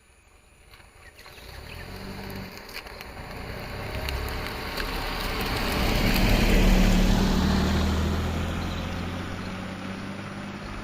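A road vehicle passing by: engine and tyre noise rising to a peak about seven seconds in, then fading away.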